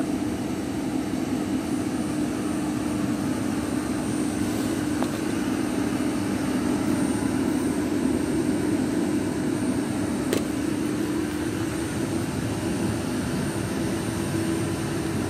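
Steady hum and rush of a gas boiler plant running, with a held low tone, and a single light click about ten seconds in.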